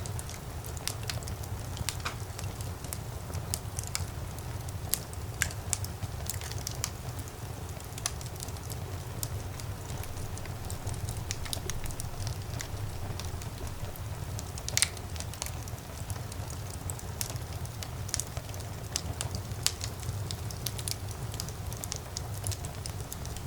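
Wood fire in a fireplace crackling: irregular sharp pops and snaps over a steady low rumble, with one louder pop about fifteen seconds in.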